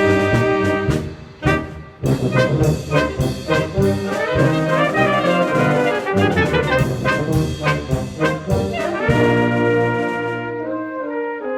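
Brass band playing a Bohemian polka, trumpets and trombones over steady drum beats; about nine seconds in the drumming stops and the band holds a long sustained chord.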